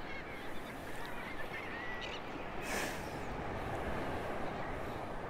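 Steady wind and water noise from open shallow surf, with a few faint, wavering bird calls about two seconds in.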